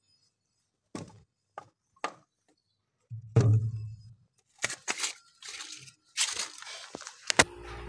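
Handling noise as the phone is moved about: a few sharp clicks, a loud low thump about three seconds in, then scattered rustling and crackling.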